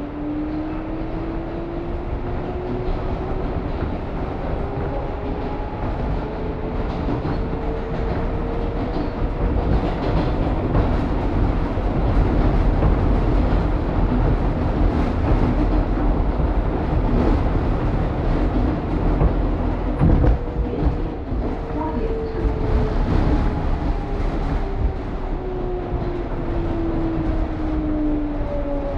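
New York City Subway R188 train on the 7 line running between stations. The motor whine climbs in pitch through the first third as the train accelerates, the train then runs steadily along the rails, and over the last third the whine falls in pitch as it slows.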